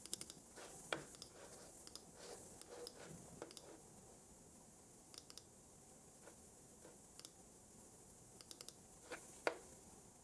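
Computer keyboard typing and mouse clicks: a flurry of keystrokes over the first few seconds, then scattered single clicks with a quick run of three near the end. A faint steady hiss lies underneath.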